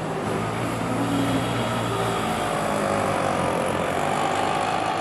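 Steady road traffic noise, a continuous din of vehicles with faint held tones over it.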